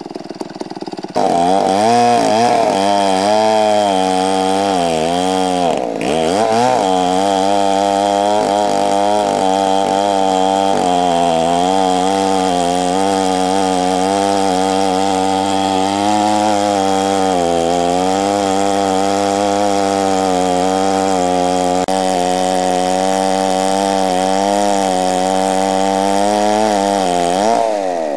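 Large Stihl two-stroke chainsaw ripping lengthwise through an oak log. It opens up to full throttle about a second in, and its pitch keeps sagging and recovering as the bar loads up in the cut. The engine bogs down hard once about six seconds in, and the revs rise and drop back near the end.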